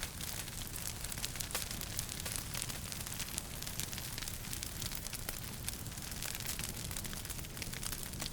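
Wood fire crackling in a fireplace: frequent small, sharp snaps and pops at irregular intervals over a steady hiss and low rumble.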